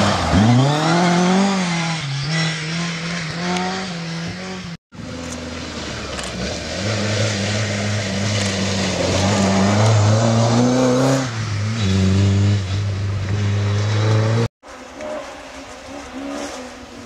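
Ford Escort rally car engines revving hard, the pitch climbing and dropping as the drivers change gear and come on and off the throttle. The sound cuts off abruptly twice, about five seconds in and near the end, as one car gives way to the next.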